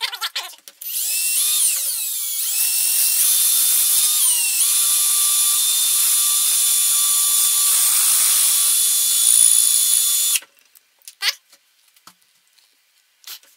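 Cordless drill running, boring a hole through the end of a clear plastic tube housing: a steady high motor whine that spins up about a second in, dips in pitch briefly near the middle and stops sharply after about ten seconds. A few light clicks of the plastic parts being handled follow.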